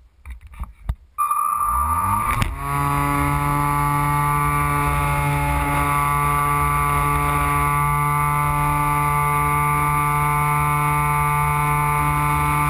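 Electric motor and propeller of a Carl Goldberg Electra RC sailplane starting about a second in, its whine rising in pitch for about a second as it spins up, then running steadily at a constant speed as the model flies, heard from a camera mounted on top of the fuselage. A few faint clicks of handling come before the motor starts.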